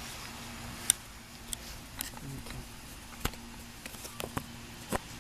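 A dog's claws tapping and scrabbling on a plastic play structure: scattered sharp clicks, the loudest about a second in, over a faint steady low hum.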